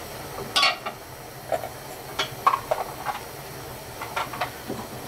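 A pot of doenjang broth with radish simmering on the stove: a steady hiss with scattered short pops and clicks from bubbles and a spoon against the pot.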